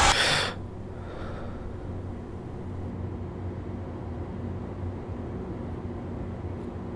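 A loud rising noise cuts off sharply about half a second in, leaving a low, steady hum.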